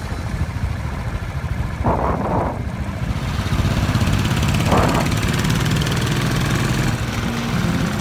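Motorcycle engine running while the bike rides along, a steady low rumble mixed with wind on the microphone. There are two short rushes of noise, about 2 and 5 seconds in.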